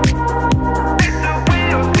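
Electronic dance music with a steady kick drum about twice a second, sustained synth chords and hi-hats.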